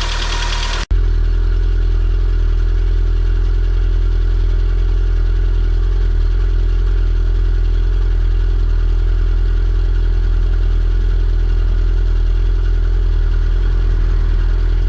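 Peugeot 106 Rallye S1's four-cylinder engine idling steadily from cold through its stock exhaust, which has a small hole in it. A louder, hissier sound cuts off abruptly about a second in, before the steady idle.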